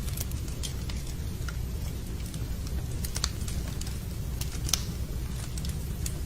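Wood fire crackling in a fireplace: irregular sharp pops and snaps over a steady low rumble, with one louder pop near the end.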